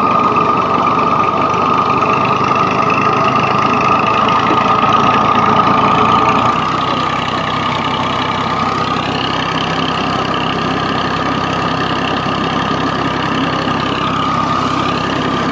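Tractor's diesel engine running steadily, driving a long flat belt that turns a borewell pump's pulley head while it pumps water, with a steady high whine throughout. The sound gets slightly quieter about six and a half seconds in.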